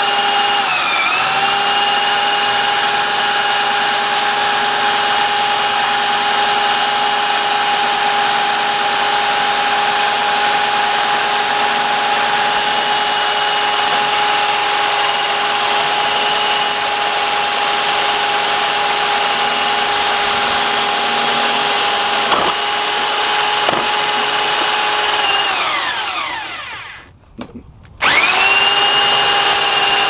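Power drill running steadily, turning an inside pipe cutter inside a PVC pipe to cut it from within, with the blade scraping against the plastic. The motor pitch sags briefly about a second in. Near the end the drill winds down and stops, then starts again a second or so later and speeds back up.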